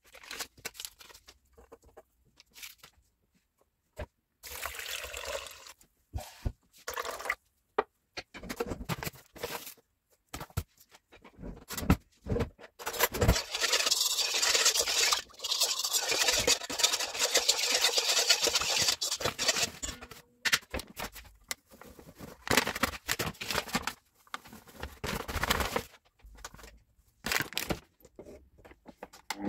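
A metal spoon stirring and scraping in a metal bowl, mixing yeast into water, with scattered clinks and knocks of kitchen utensils. The steadiest, loudest scraping comes in the middle.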